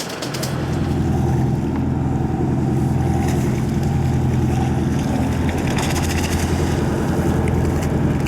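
Fishing boat's engine running steadily underway with a low, even hum that swells up during the first second.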